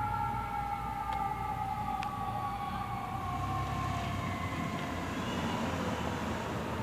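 Fire truck siren wailing, its pitch falling slowly and steadily, over a low steady rumble.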